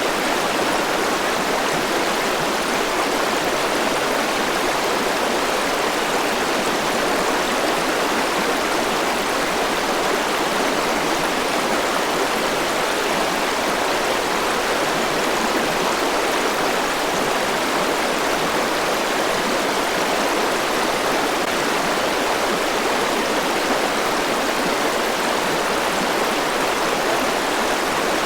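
Forest river rushing over rocks, a steady, even flow of water noise.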